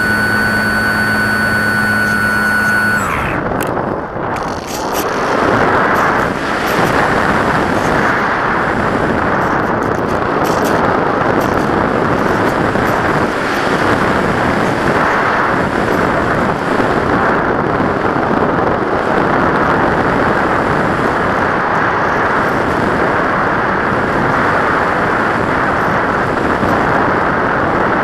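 RC model plane's electric motor and propeller whining at a steady pitch, then cut about three seconds in, the pitch sliding down as it stops. After that, loud steady wind rushes over the onboard camera as the plane glides with the motor off.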